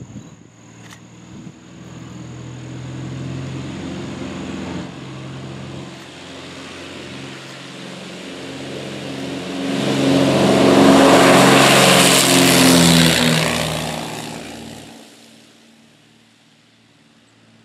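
Piper Aztec's twin piston engines and propellers running as the airplane powers up for its takeoff roll, the sound building to its loudest as it passes a little past halfway. The pitch then drops and the sound fades as the airplane accelerates away down the runway.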